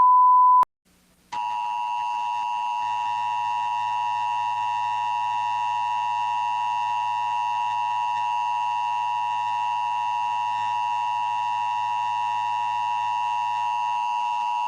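A brief, loud single-pitch beep, a short gap, then the Emergency Alert System attention signal: a harsh, steady two-tone alarm that sounds without a break, heralding an emergency broadcast.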